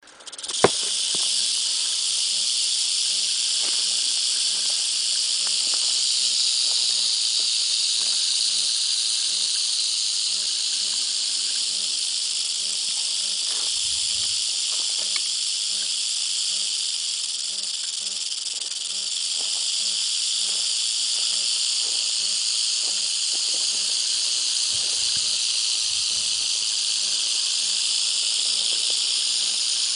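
South American rattlesnake (Crotalus durissus) shaking its tail rattle: a continuous, dry, high buzz that starts abruptly just after the beginning and holds steady, the snake's defensive warning.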